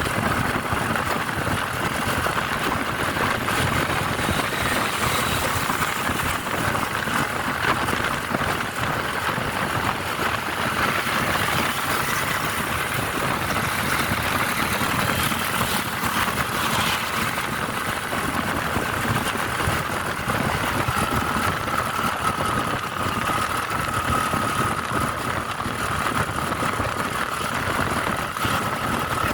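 Vehicle driving along a road: steady engine and road noise. A faint thin whine comes in about two-thirds of the way through.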